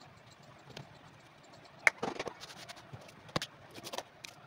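A hand tool scraping and knocking the crumbled remains of an old sole off the bottom of a leather shoe: a sharp click about two seconds in, a short run of scraping, another sharp click, then more scraping.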